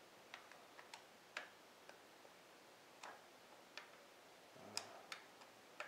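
Faint, scattered light clicks and ticks, irregularly spaced, from hands and a tool working the bolts of a motorcycle ignition coil being fitted back in place.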